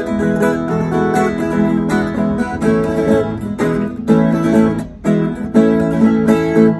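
A Brazilian ten-string viola caipira and a nylon-string acoustic guitar playing an instrumental intro together, a picked melody over strummed chords, with a brief pause about five seconds in.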